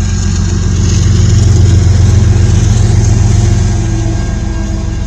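Diesel locomotive engine running as it passes close by, a steady low drone that swells over the first couple of seconds and then fades: a helper (distributed-power) locomotive at the rear of a CN freight train.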